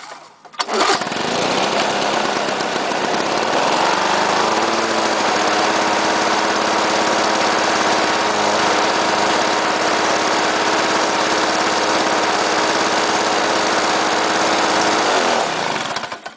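1988 Lawn-Boy 7073's two-stroke F-series engine, cold-started on choke after priming: it is pull-started and catches about a second in, its speed rising and settling after a few seconds. It runs steadily, then winds down and stops near the end.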